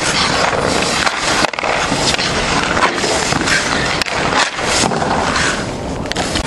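Hockey goalie's skate blades and leg pads scraping and sliding across outdoor ice in repeated power pushes, a continuous rasping scrape. A sharp knock about a second and a half in and two close together around four seconds in.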